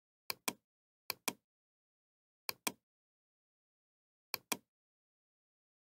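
Computer mouse clicking four times, each click a pair of sharp ticks about a fifth of a second apart, with dead silence between.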